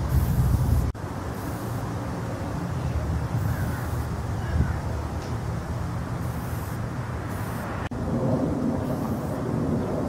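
Aerosol spray-paint can hissing in short bursts, several times, over a steady low rumble.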